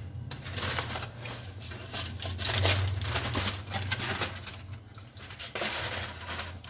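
Aluminium foil crinkling and rustling in irregular crackles as it is peeled off a pot of biryani to break its dum seal, over a steady low hum.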